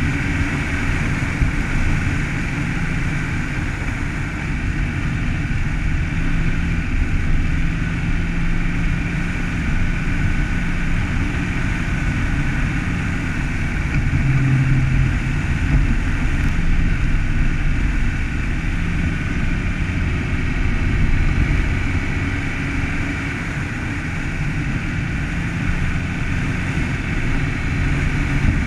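Car driving steadily on a snow-packed road: a continuous low engine hum mixed with tyre and road noise, rising and falling slightly in level.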